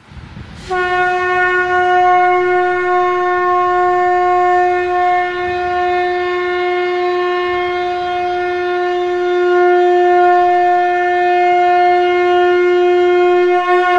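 Conch shell (shankhu) blown in one long, steady blast at a single pitch, starting about half a second in.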